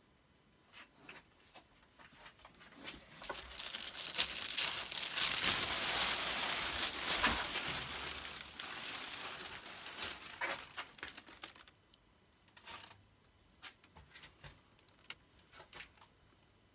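Reflective foil lining of a grow box crinkling as it is handled. A few crackles come first, then about eight seconds of continuous crinkling, loudest in the middle, followed by one short burst and scattered crackles.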